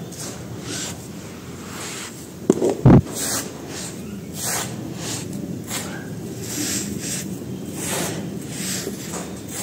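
Dry, dusty sand-cement powder being raked and sifted through bare fingers: gritty rustling and pouring hiss in repeated strokes, about one every second. A pair of dull thumps stands out just under three seconds in.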